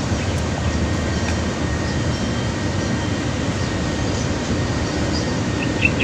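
Steady low rumbling outdoor noise by a river, with a few short high bird chirps right at the end.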